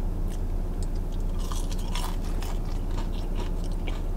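A person biting into and chewing French fries dipped in barbecue sauce, close to the microphone, with a dense run of small wet clicks and crunches in the middle and scattered ones towards the end, over a steady low hum.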